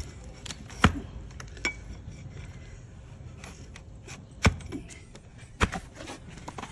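Flat hoof-trimming blade cutting horn from a donkey's hoof against a wooden block: three sharp cracks, a little under a second in, about four and a half seconds in and just after five and a half seconds, with lighter clicks between.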